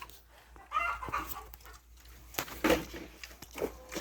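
Chickens clucking, a few short calls.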